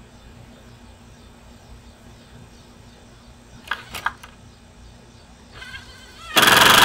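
Two sharp clicks a little past halfway, then a cordless driver whirring briefly and driving a screw in a short, loud burst near the end, fastening a wooden brace board to a post.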